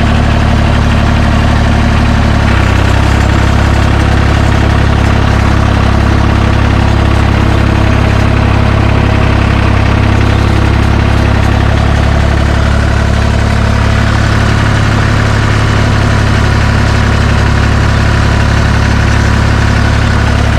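John Deere 350 crawler dozer's engine running steadily, with a small change in its note about two and a half seconds in.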